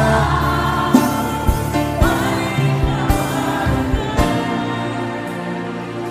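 Gospel worship music: voices holding long, wavering notes over a band, with a drum beat about once a second, growing quieter toward the end.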